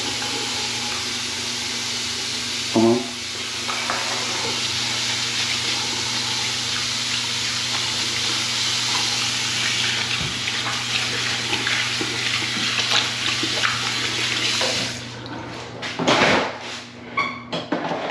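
Water running from a bathroom sink faucet into the basin during hand washing, a steady splashing flow that stops about fifteen seconds in when the tap is shut off. There is a short sharp knock about three seconds in, and scattered knocks and rustling after the water stops.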